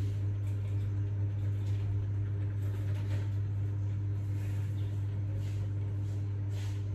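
A steady low hum with faint soft rustles coming and going over it.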